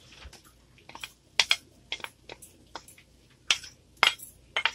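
Wooden spatula knocking and scraping against a plate while chopped ginger is pushed off it into a frying pan: a series of sharp, irregular taps.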